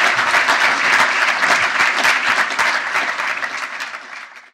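Audience applauding, a dense steady clapping that fades out over the last second and then cuts off.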